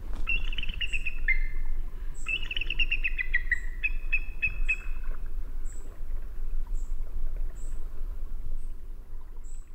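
Bald eagle calling: two rapid chittering series of high chirps, each falling in pitch, in the first half. Faint short high notes come about once a second over a low steady rumble.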